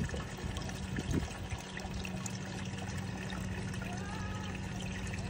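Water running steadily over a sluice box's riffles and mat as gravel washes through, with a steady low hum underneath and a couple of small knocks in the first second.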